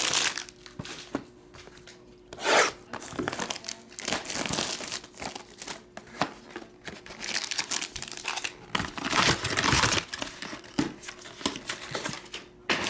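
Clear plastic shrink wrap torn off a trading-card box and crinkled in the hands, in uneven bursts of tearing and crinkling. Cardboard and foil are handled as the box is opened and its pack taken out.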